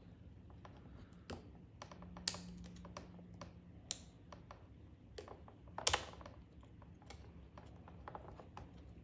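Irregular small plastic clicks and taps as a pressure switch is pushed and pried out of a pressure washer's plastic switch box. The loudest click comes about six seconds in.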